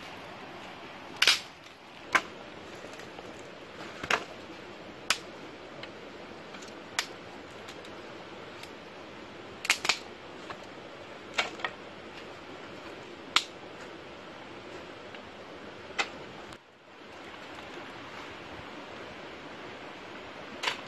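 About a dozen sharp cracks, irregularly spaced, over a steady outdoor hiss. The loudest come about a second in and again about thirteen seconds in.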